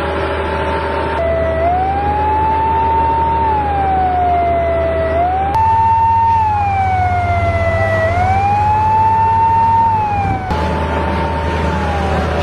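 Emergency vehicle siren wailing, its pitch rising and falling slowly about once every four seconds, over a steady low hum.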